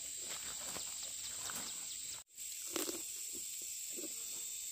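Outdoor rural ambience: a steady high-pitched insect drone with light rustling. The sound drops out for a moment about two seconds in, and a short louder low sound follows.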